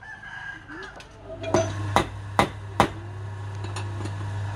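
Four sharp knocks about half a second apart, from a log clamped in a wood lathe chuck being struck while it is set up. A steady low hum comes in about a second in and carries on.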